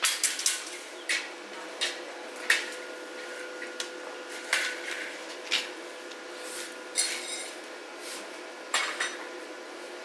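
Metal parts and tools clinking and knocking against each other at an irregular pace, some strikes ringing briefly, over a faint steady hum.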